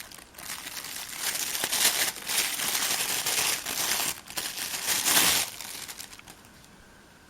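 Packaging being crinkled and handled by hand, loudest about two seconds in and again near five seconds, then dying away shortly before the end.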